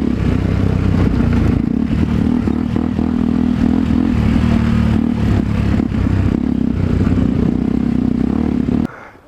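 Motorcycle engine running steadily under load while riding over a rough green lane, with clattering from the bike. The sound drops off abruptly near the end.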